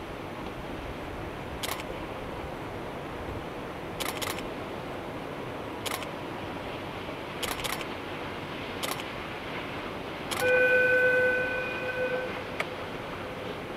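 Camera shutters clicking several times over a steady hiss, then a train horn sounding one held blast of about two seconds near the end, the loudest sound here, from the Oigawa Railway Ikawa Line locomotive crossing the bridge.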